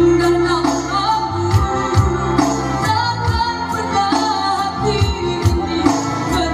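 A girl singing a melody into a handheld microphone over amplified backing music with held chords and a steady beat.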